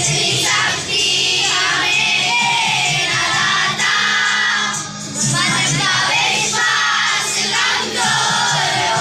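A small group of boys singing a prayer together in unison, in phrases with short pauses for breath between them.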